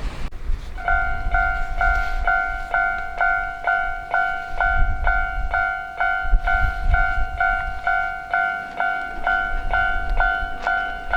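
Japanese railroad crossing warning bell starting about a second in and then ringing steadily, about two clangs a second, each a bright ringing tone.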